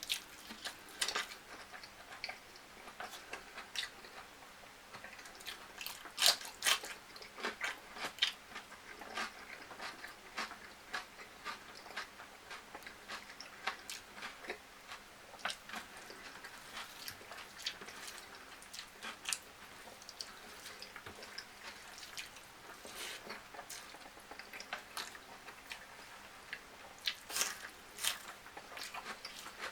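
Close-miked eating sounds: a person chewing and biting food, with many irregular sharp clicks, strongest about six seconds in and again near the end.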